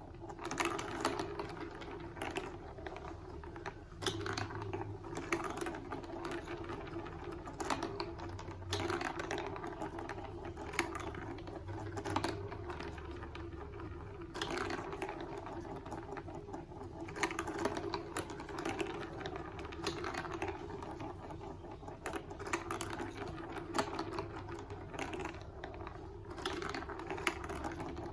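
Plastic marble run building-block pieces clicking and rattling in quick, irregular clicks and taps.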